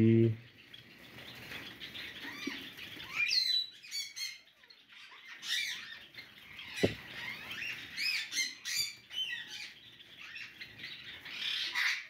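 Java sparrows chirping, many short rising-and-falling calls overlapping throughout, with one sharp click about seven seconds in.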